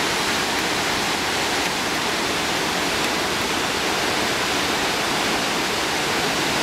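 Large alpine waterfall thundering at close range, a dense, steady roar of falling water.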